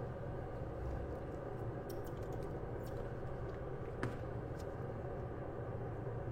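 Steady low hum of electronics-repair bench equipment, with a few faint clicks of small tools being handled.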